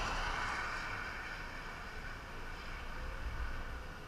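Highway traffic: the tyre and road noise of a car that has just driven past fades away, over a low wind rumble on the microphone.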